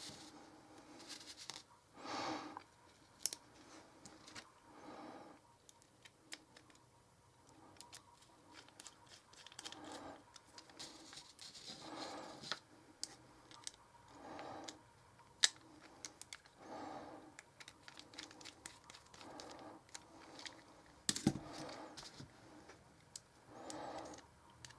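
Faint clicks and small handling noises of a folding knife's G10 scales, screws and a small Torx screwdriver as the knife is put back together and its screws are turned in. The clicks come at irregular moments, a few sharper than the rest.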